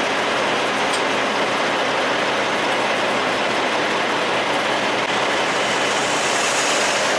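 Diesel truck engine running steadily, with a constant rushing hiss over it.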